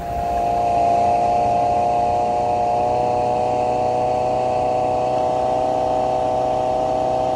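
Boat outboard motor running steadily at a constant speed, a motor that is running badly and acting up.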